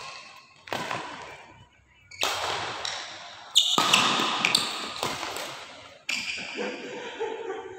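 Badminton rackets striking a shuttlecock in a rally: a string of sharp hits about a second or two apart, each echoing on in a large hall.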